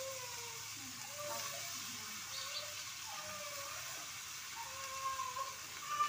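A cat meowing over and over, a string of drawn-out calls that fall in pitch.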